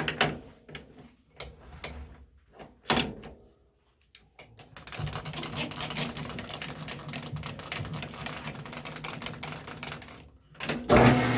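Metal lathe work: a few seconds of clicks and clanks as the tooling is set, then the lathe runs with a rapid clicking chatter for about five seconds while the front edge of the steel part is chamfered. It stops briefly and the lathe starts up again near the end, louder.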